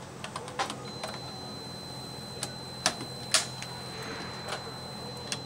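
Scattered light mechanical clicks and knocks from a suppressed rifle being handled and brought up to fire, the louder ones about three seconds in. A faint steady high tone comes in about a second in.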